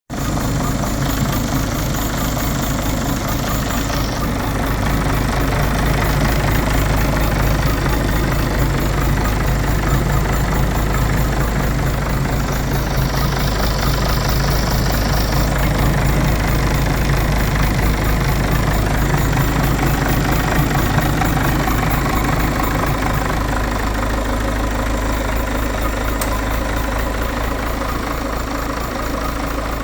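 Citroën C5 2.0 HDi 180 four-cylinder turbodiesel engine running steadily, making an abnormal noise that the owner considers bad and cannot identify.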